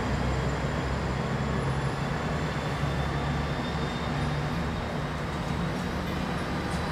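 Steady city street traffic noise: an even low rumble and hiss with no single vehicle standing out.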